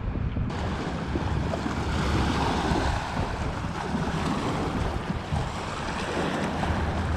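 Lake water washing and splashing around an inflatable kayak, with wind buffeting the microphone. A low boat-engine drone sits underneath at the very start.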